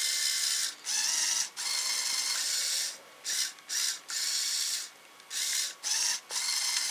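Lego Power Functions electric motor whirring through its worm-gear gearbox as the robotic arm's joint is driven, high-pitched, in short runs that stop and start several times.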